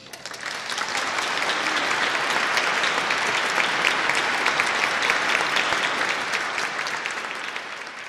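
Audience applauding, a dense steady clatter of clapping that swells in over the first second and dies away near the end.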